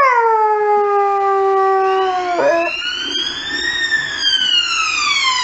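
Saluki howling at an emergency vehicle siren: one long howl that drops in pitch at the start, holds steady and breaks off about two and a half seconds in. A siren wail rises and falls under and after it.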